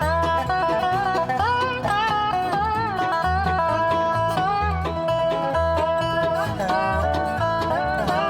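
Background bluegrass-style music: plucked banjo and guitar over a steady beat.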